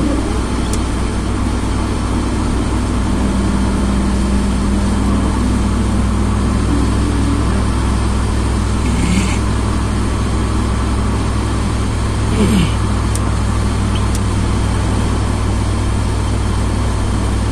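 Steady in-cabin road noise of a car driving on a wet highway: a low rumble from engine and tyres with tyre hiss off the wet asphalt. Two brief noises break in about nine and twelve and a half seconds in.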